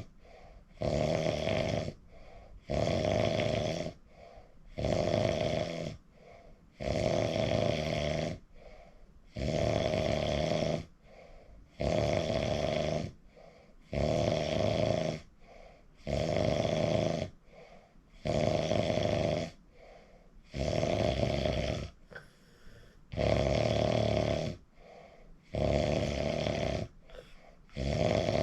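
A person snoring in a steady, even rhythm: each snore lasts about a second and comes roughly every two seconds, with a quieter pause between.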